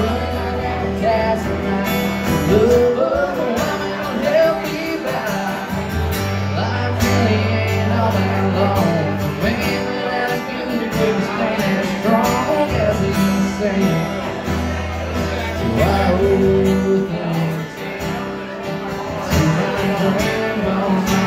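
A male singer singing live into a microphone while playing an acoustic guitar, amplified through a small PA.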